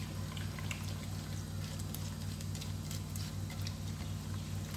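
A hand stirring and squishing a runny mix of eggs, sugar and oil with almonds and raisins in a glazed earthenware bowl: soft, irregular wet squelches and patters over a steady low hum.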